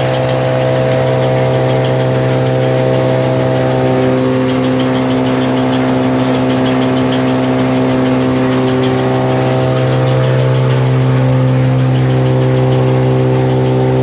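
Pull-out tissue paper machine running with a steady low motor hum and several held tones above it.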